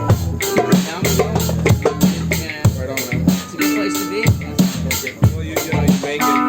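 Live band jamming: a drum kit keeps a steady beat under held bass and guitar notes.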